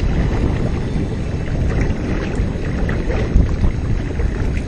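An outrigger sailing canoe under way: water rushing and splashing along the hull, with wind rumbling on the microphone.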